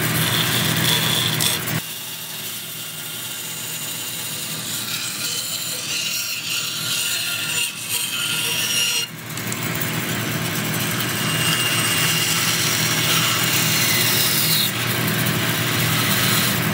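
Bandsaw blade cutting through a wooden spoon blank. It runs steadily with a rasping cutting noise that drops to a lower level from about two seconds in and picks back up a little after nine seconds.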